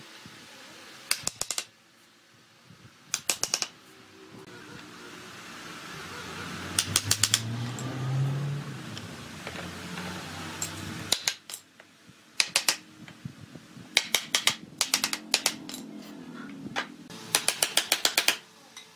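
Bursts of quick hammer blows on wood, a claw hammer tapping chair parts together to seat the mortise-and-tenon joints of a wooden chair frame, several fast strikes to each burst with pauses between. A low rumble comes and goes near the middle.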